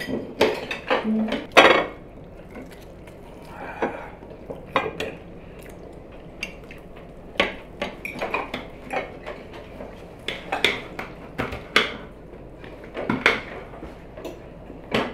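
Forks, knives and serving spoons clinking irregularly against china plates and serving dishes as food is served and eaten, with the sharpest clinks in the first two seconds.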